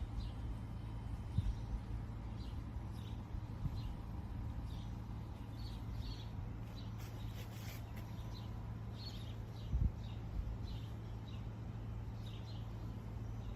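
Small birds chirping, short high chirps repeating every second or so, over a steady low hum, with a couple of dull low thumps.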